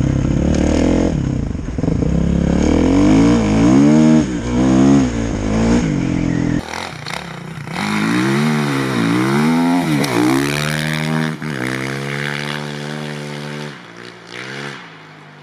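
Kawasaki KX450F's 449 cc single-cylinder four-stroke engine revving up and down again and again under throttle blips. About six and a half seconds in, the sound changes abruptly and loses its deep low end. Near the end the revs settle and the engine gets quieter.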